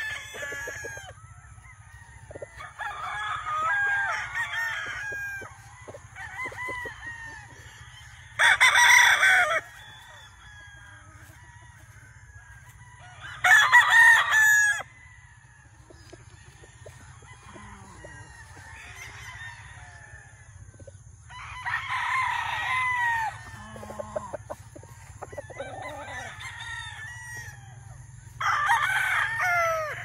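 Roosters crowing, about five crows spread out, the two loudest about nine and fourteen seconds in, with softer clucking between.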